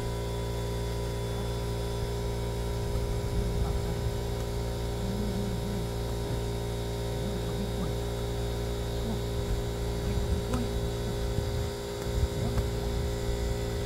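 A steady hum made of several fixed tones, over an irregular low rumble of wind on the microphone.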